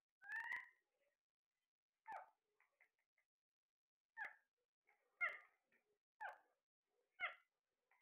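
Alexandrine parakeets calling in their cages: six short, pitched calls, the last four coming about once a second.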